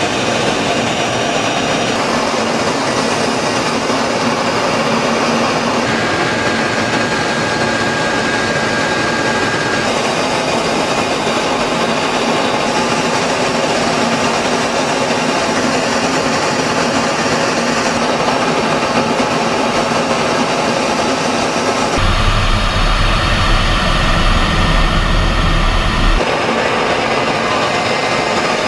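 Steady jet engine and rushing air noise of FA-50 light combat jets in flight, changing in character every few seconds as the shots change. Late on, a deep rumble comes in for about four seconds.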